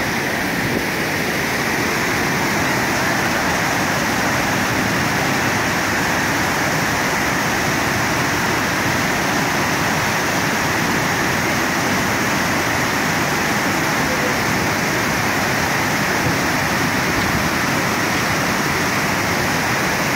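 The Great Falls of the Passaic River: a large waterfall in full flow, its falling water making a steady, even rush.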